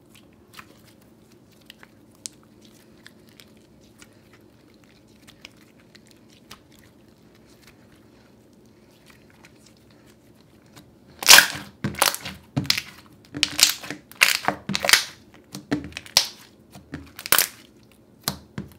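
Thick, glossy slime being handled with bare hands. For about the first ten seconds it is squeezed and stretched, giving only faint, scattered sticky clicks. Then, as fingers poke and press it against the board, it makes a quick run of loud, wet pops and clicks.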